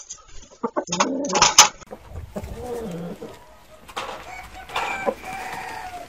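Chickens mating: a rooster's wings flap and clatter as he mounts a hen, loudest with a short squawk about a second and a half in, followed by several low calls that bend in pitch and a higher call near the end.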